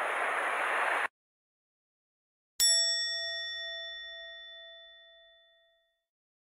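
Surf washing against rocks cuts off abruptly about a second in; after a short silence a single bell-like chime, an edited-in sound effect, is struck once and rings out, fading over about three seconds.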